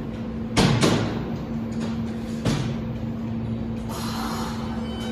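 R160 subway train starting to pull out of the station: a steady hum with several sharp clunks in the first half, then a hiss near the end as it gets moving.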